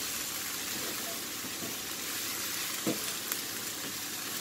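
Sliced leek, onion and mushrooms sizzling steadily in hot oil in a frying pan as they are stirred with a wooden spatula, with one soft knock about three seconds in.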